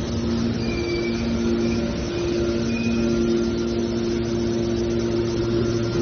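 Automatic metal baler's hydraulic pump and motor running: a steady machine hum that holds one pitch.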